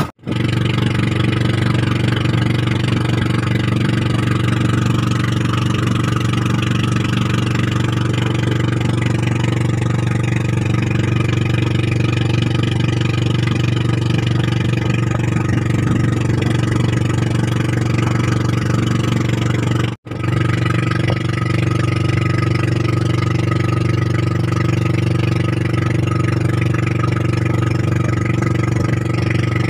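Engine of a motorized outrigger boat (bangka) running steadily at cruising speed, heard loud from on board.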